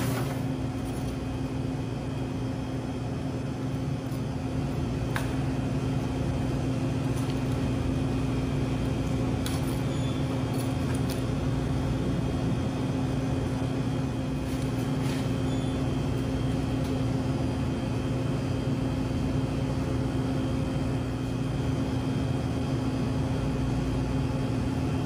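Steady mechanical hum of a commercial kitchen's exhaust hood and equipment, with a few light clinks of metal tongs against the pan and plate.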